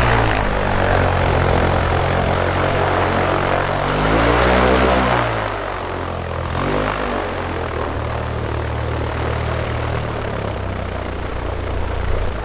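Small propeller airplane's piston engine running on the ground. Its pitch swells and falls about four to five seconds in, then holds steady.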